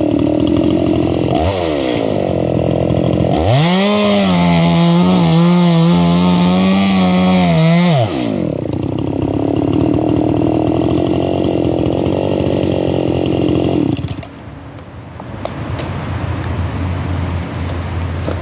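Two-stroke chainsaw bucking a log: the engine blips, then runs at a high steady pitch under full throttle for about four seconds before dropping back to idle. The engine note falls away near the end.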